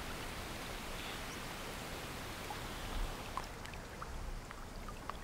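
Steady outdoor ambient hiss by open water, easing a little about three seconds in, with a few faint short ticks after that.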